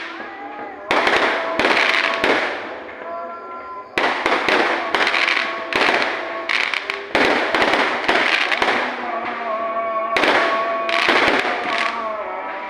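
Fireworks going off in a rapid string of loud bangs with crackling tails, in clusters every second or so with short lulls, over background music.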